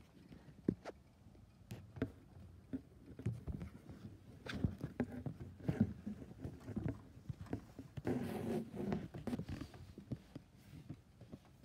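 Handling noise: rustling, scraping and scattered light knocks as a phone is moved about and rubbed against fabric, with a denser stretch of rustling about eight seconds in.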